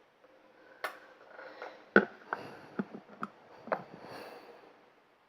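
Makeup items being handled and set down: a string of sharp clicks and light knocks, the loudest about two seconds in, over faint rustling.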